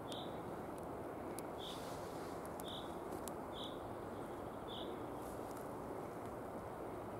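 A small bird gives a short, high call about once a second, repeated over and over. Under it runs a steady, soft rushing noise.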